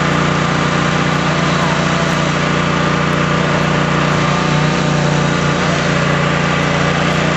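An engine running steadily at high speed, holding one pitch throughout.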